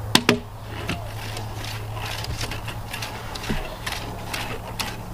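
Two sharp knocks just after the start, then scattered light taps and scuffs as a metal detector is handled and swept over cedar cants, all over a steady low hum.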